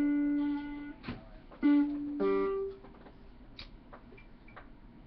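Squier Stratocaster electric guitar played note by note: a picked note rings for about a second, then after a short pause two more single notes follow, the last one higher. For the second half only a few light clicks of pick and strings are left.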